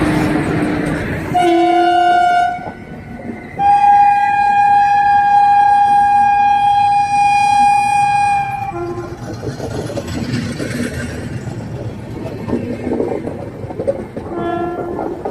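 WAP-4 electric locomotive's air horn sounding shrill: a blast of about a second, then a long blast of about five seconds, then the train running with a rumble and clatter, and another short blast near the end.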